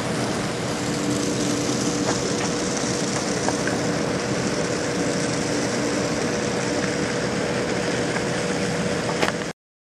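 Steady machinery hum with a constant tone running through it, cutting off suddenly near the end.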